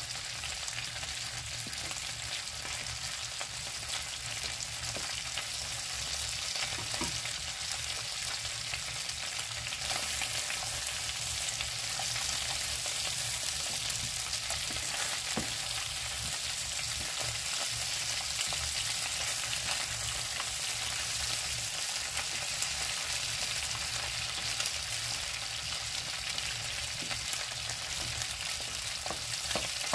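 Chicken wings sizzling in hot oil in a non-stick frying pan, a steady hiss that grows a little louder about ten seconds in. A few light scrapes and taps come from a wooden spatula turning the wings.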